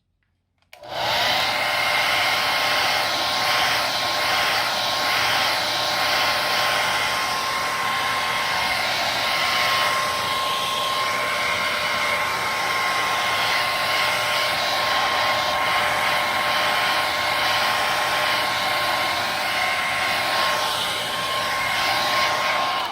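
Hair dryer switched on about a second in and running steadily: a rush of blown air with a constant whine from its motor and fan.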